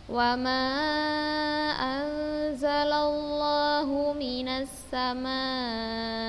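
A female voice reciting the Quran in a melodic chant, holding long notes on drawn-out vowels, with short breaks between phrases.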